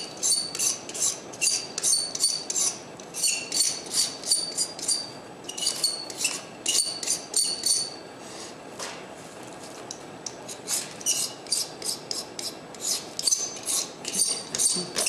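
Metal carving tool scraping a plaster lifecast in quick, rhythmic strokes, about three a second, shaving down a high spot on the cast. The strokes ease off about eight seconds in and pick up again a couple of seconds later.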